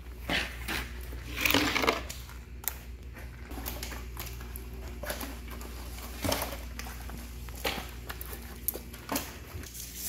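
Whole hairtail (cutlassfish) being handled and laid out by rubber-gloved hands while being counted: a string of separate wet slaps and slithers of fish bodies against each other and the floor, over a steady low hum.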